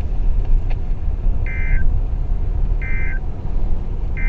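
Three short warbling data chirps from a weather radio, about 1.3 seconds apart: the SAME/EAS end-of-message bursts that close a NOAA Weather Radio Required Weekly Test. Under them runs the low rumble of the car driving.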